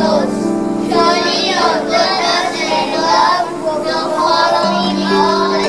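A group of children singing together over musical accompaniment with held notes.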